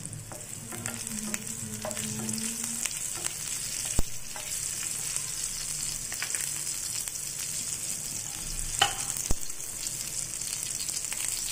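Cumin seeds and chopped green chillies sizzling in hot oil in a frying pan: a steady high frying hiss. A sharp click comes about four seconds in and two more close together near the end.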